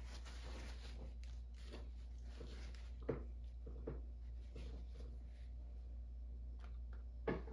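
Paintbrush working acrylic paint onto a textured canvas: faint scratchy strokes with a few short soft taps, over a low steady hum.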